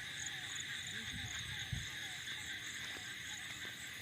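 Night chorus of insects: a steady shrill buzz with rapid repeated chirps over it and a series of short falling calls lower down. A brief low sound comes about a second and a half in.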